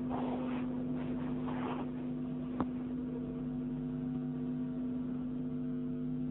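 A steady low electrical hum with several faint overtones, and a single short click about two and a half seconds in.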